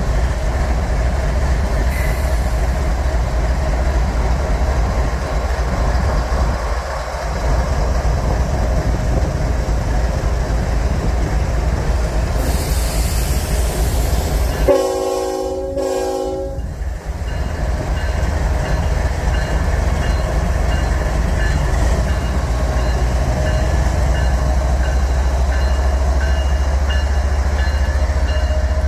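Train passing with a steady low diesel rumble and wheel noise, a brief hiss of air about halfway, then a horn blast of several tones lasting about two seconds.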